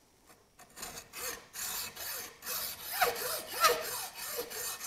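Hacksaw cutting a Minn Kota PowerDrive trolling motor's composite shaft: a back-and-forth rasp of about two strokes a second that starts about a second in, with a couple of brief squeaks from the blade.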